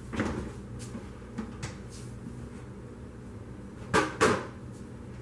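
Kitchen handling noises as a bottle of barbecue sauce is fetched: a soft clatter at the start, a few light clicks, then two sharp knocks about four seconds in, typical of a cupboard door and a bottle being handled.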